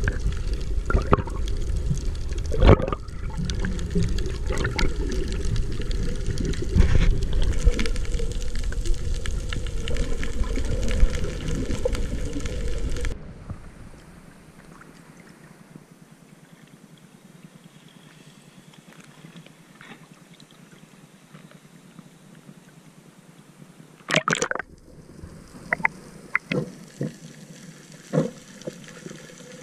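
Seawater rushing and bubbling around an underwater action camera as divers fin through shallow water, loud and churning with many sharp knocks. About thirteen seconds in it drops suddenly to a faint hiss. A short loud splash-like burst comes about twenty-four seconds in, followed by scattered knocks.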